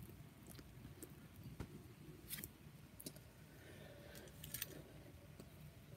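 Faint, scattered clicks and taps of plastic action figures and a toy motorcycle being handled and set down on a cutting mat, about five in all, over near-silent room tone.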